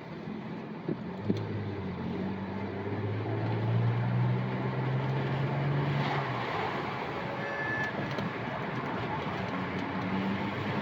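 Car engine pulling the car along, heard from inside the cabin over road noise. Its note rises steadily for several seconds and then drops back about six seconds in. There are two short knocks about a second in.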